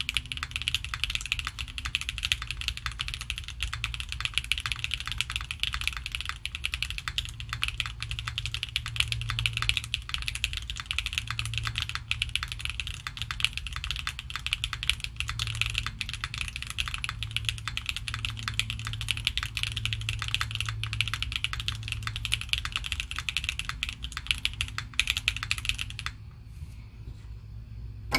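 Continuous fast typing on a Neo65 gasket-mounted keyboard with an FR4 plate, stock Kailh BCP (Box Cream Pro) linear switches and PBT keycaps: dense, even keystroke clacks. The typing stops about two seconds before the end.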